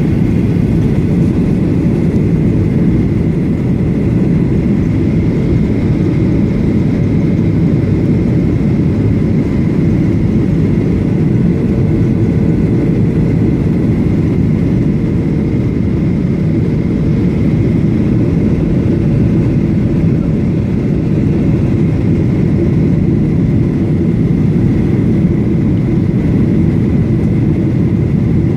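Steady cabin noise inside a Boeing 737-800 in descent: a low, even rumble of airflow and its CFM56 turbofan engines, with a faint steady whine above it.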